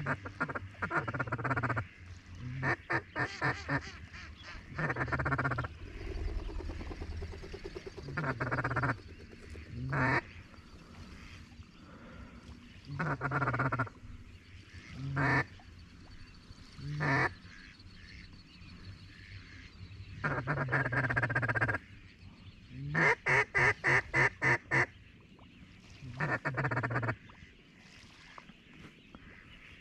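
Hand-blown duck call giving repeated bursts of hen quacks, about a dozen runs. The loudest is a string of about seven evenly spaced quacks near the end. It is used to call in the waterfowl circling over the decoys.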